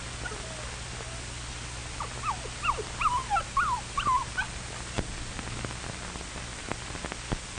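Puppy whimpering: a run of about eight short, high whines packed into two or three seconds, the crying of a homesick young dog.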